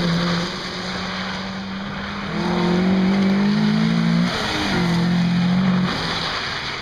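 1400cc rally hatchbacks running hard on a wet gravel stage, engines held at high revs over tyre and gravel noise. The note steps up and down in pitch and is loudest for about two seconds near the middle, as an MG ZR comes past.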